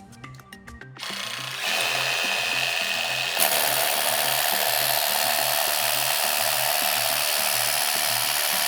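Hammer drill boring into the wall. It starts about a second in, runs with a steady high whine for a couple of seconds, then turns harsher and louder as it bites in and keeps going. Background music with a steady beat underneath.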